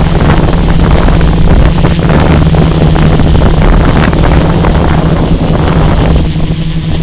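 Multirotor drone's motors and propellers humming steadily, picked up by the camera's microphone on board, with wind buffeting the microphone that eases off about six seconds in.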